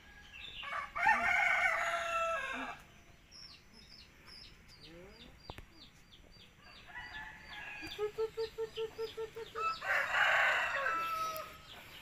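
A rooster crowing twice, once about a second in and again near the end. Between the crows, a small bird gives a long string of short, high, falling notes, and a quick run of low, pulsed notes follows.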